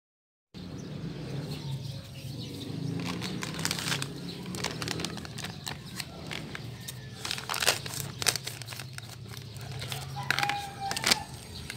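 Plastic bag of flour crinkling as it is handled, with several sharp crackles in the second half, over a steady low hum.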